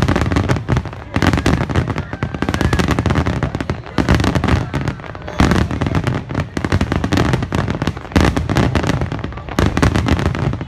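Dense barrage of aerial fireworks: many shells bursting in quick succession, with deep booms and continuous crackling of stars. The sound comes in waves, easing briefly every couple of seconds before building again.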